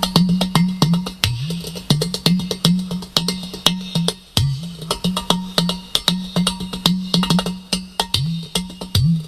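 Udu clay pot drum played by hand in a quick, busy rhythm: sharp taps on the clay body over a steady pulse of low, hollow tones from the side hole. Several of the low tones swoop up in pitch.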